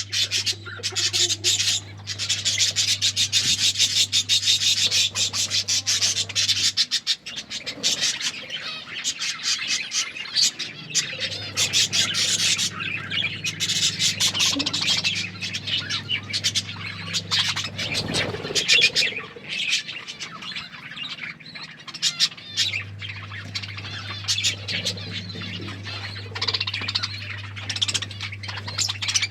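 Budgies chattering and chirping in rapid, busy bursts, densest in the first several seconds. A low steady hum lies underneath and cuts out twice for a few seconds.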